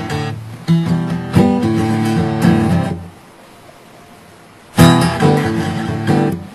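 Acoustic guitar strummed casually through a few chords, then silent for nearly two seconds before another strum and a couple more chords.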